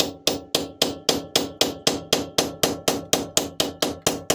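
Ball-peen hammer striking an old lug nut threaded onto a Yamaha Grizzly wheel stud, to drive the stud out of the hub. The blows come in a steady run of about four a second, each one ringing briefly, like metal.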